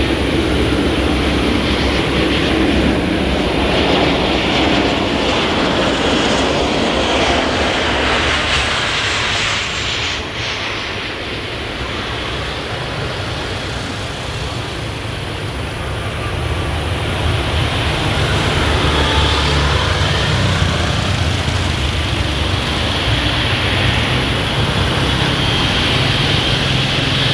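Boeing 777-300ER's GE90-115B jet engines running loud. A high whine falls in pitch about eight to ten seconds in, the noise eases slightly, then builds again with a steady high whine near the end.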